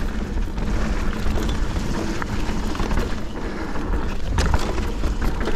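Mountain bike descending a rough trail: wind rumbling on the camera microphone over the steady rush of knobbly tyres on dirt, with the hardtail's frame and chain rattling. A few sharp knocks from the bike hitting bumps sound about four to five seconds in.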